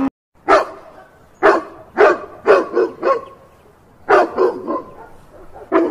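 A rough collie barking: about ten short, sharp single barks, some in quick runs of two or three, with a short pause partway through.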